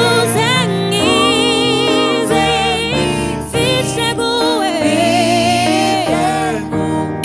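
Gospel music: a sung melody with vibrato over steady instrumental accompaniment.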